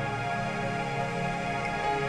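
Calm background music with long held notes.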